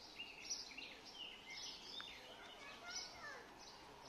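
Small birds chirping faintly, many short overlapping calls and quick twitters over a quiet outdoor background.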